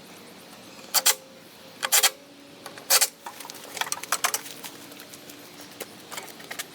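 Small metal hardware and tools clinking and clattering as screws are put in: three sharp clatters about a second apart, then lighter scattered clicks and taps.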